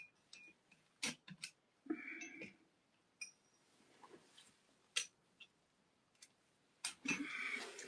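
Scattered light clicks and clinks of small metal tools and objects being handled on a workbench, with two brief rustles, one about two seconds in and one near the end.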